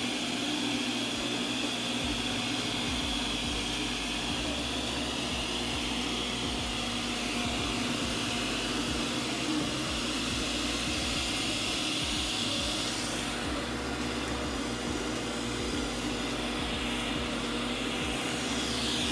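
Ecovacs Deebot N79W robot vacuum running, a steady motor and brush whir with a high hiss over it. About two-thirds of the way through the high hiss dips and wavers for a few seconds, then comes back.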